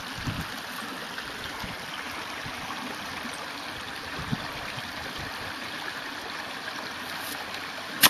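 Golf iron hitting a ball out of shallow water: one sharp smack near the end, over a steady hiss.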